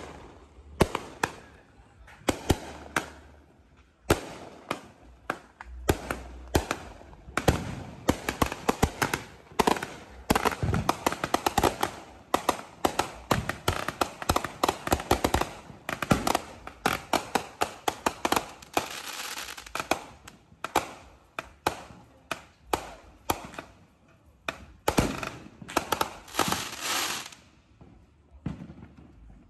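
Consumer aerial fireworks going off in quick succession: a steady run of sharp bangs and pops, thickening into dense crackling through the middle and again a few seconds before the end, then thinning out.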